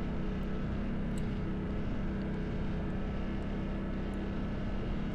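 Quad's engine running steadily at speed along a dirt trail, holding an even pitch with no revving up or down.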